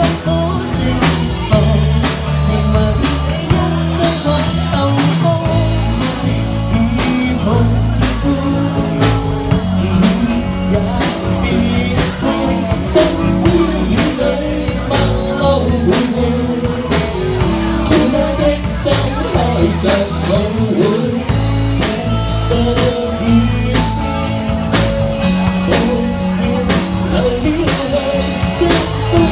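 Live band playing a pop ballad: drum kit keeping a steady beat under bass and electric guitar.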